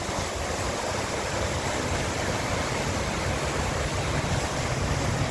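Flash flood of muddy water rushing down a dry wadi bed: a steady rushing noise with a deep low rumble.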